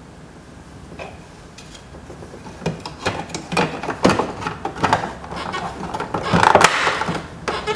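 Sped-up clicks, knocks and rubbing of a screwdriver and plastic door trim being handled as screws are driven into an interior door panel. The clicking gets busier after about three seconds, with the loudest scraping near the end.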